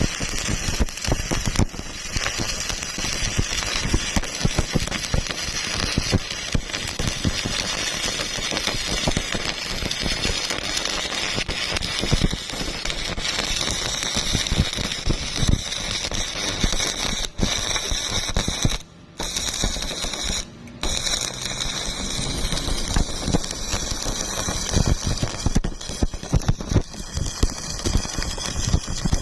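Electric welding arc crackling and spitting steadily as a bead is laid. It cuts out twice briefly about two-thirds of the way through, then strikes up again.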